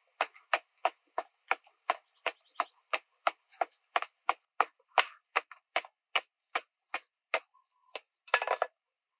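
A long-handled hoe chopping into dry, sandy ground to dig a hole, with sharp strikes about three a second. The strikes stop near the end, followed by a short noisy burst.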